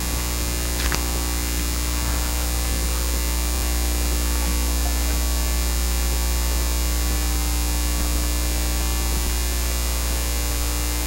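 Steady electrical mains hum with its overtones, with a faint click about a second in.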